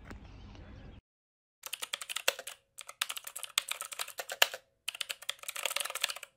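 Computer keyboard typing in four quick bursts of clicks with short pauses between them, used as a typing sound effect under on-screen text. Before the typing starts, faint outdoor ambience plays for about a second and then cuts off.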